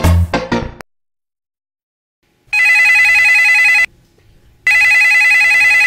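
Guitar music ends within the first second. After a short silence, a telephone rings twice, each ring a fast, even trill lasting about a second and a half.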